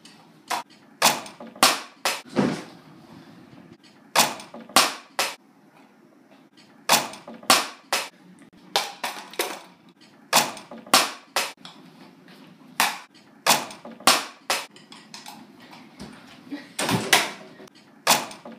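A small ball repeatedly striking an over-the-door mini basketball hoop's plastic backboard and rim, and bouncing. The sharp knocks come in quick clusters of two or three, every second or two.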